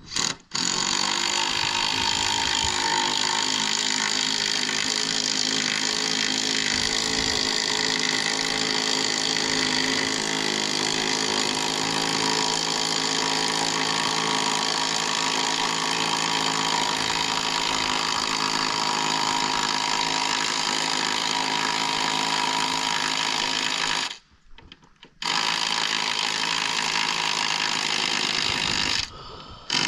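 A power tool's motor running steadily at full speed. It is switched off for about a second twice, once about 24 seconds in and again near the end, then starts again each time.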